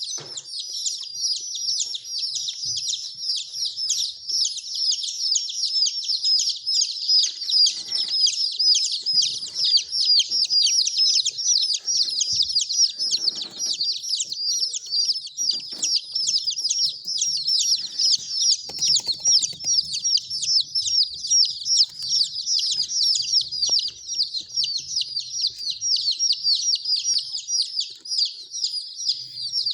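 A brood of baby chicks peeping without pause, many high, quick downward-sliding chirps overlapping one another.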